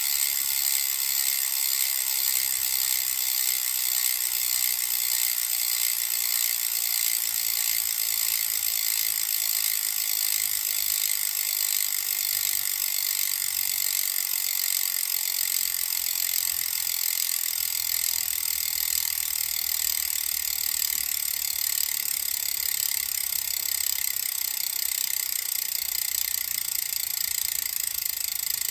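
Freehub of a Reynolds ATR-x carbon wheel, its pawls clicking so fast they merge into a steady, high-pitched buzz as the wheel spins freely.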